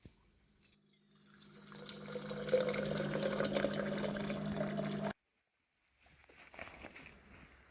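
Liquid being poured into a container, with a slowly rising tone as it fills and a low steady hum underneath; it cuts off suddenly about five seconds in. Faint light clatter follows near the end.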